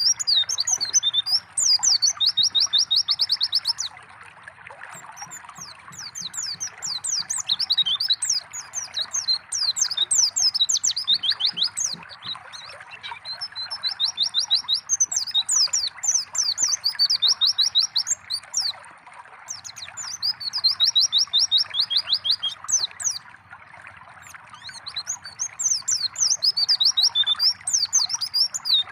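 White-eyes (pleci) singing in bursts of quick twittering phrases, with several runs of fast, even trills, over a steady sound of trickling water.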